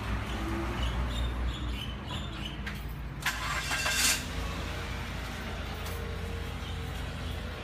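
A motor vehicle engine running steadily with a low hum, with a brief hissing rush about three to four seconds in.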